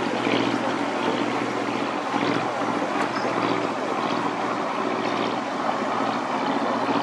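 Motor cruiser's engine running steadily as the boat cruises past on the river, a low even hum under a wash of background noise.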